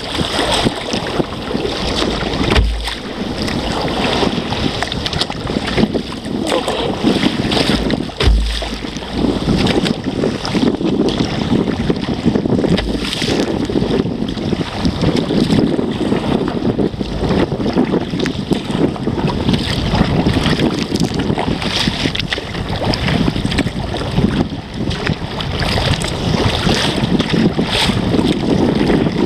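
Wind buffeting the microphone on a sea kayak's bow, with choppy waves splashing against the hull in rough water. Two strong low gusts stand out about 3 and 8 seconds in.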